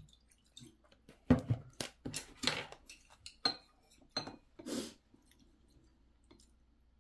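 Eating at the table: chopsticks clinking and scraping against a ceramic bowl of noodle soup, mixed with chewing noises, as a string of short sounds over the first five seconds.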